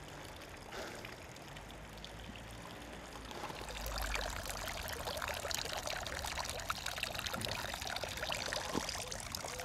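Bicycle tyres rolling over a fine gravel path: a steady crackling crunch that gets louder about three and a half seconds in, over a low rumble.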